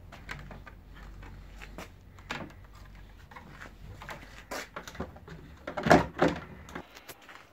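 Handling noise of clear plastic tubing and a plastic water bottle: a run of light knocks and rattles, the loudest pair about six seconds in as the hose is pushed into the bottle's neck. A faint low hum underneath stops shortly before the end.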